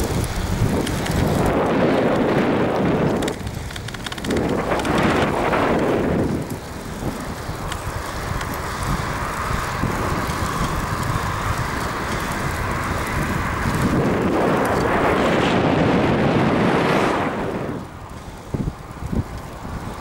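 Wind rushing over the camera's microphone on a moving bicycle, swelling loudly three times. It drops near the end to a few light knocks.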